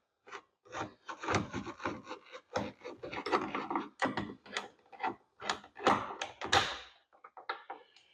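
Irregular clicks, knocks and scraping as hands and tools work loose the trim and hardware of a car's interior door panel.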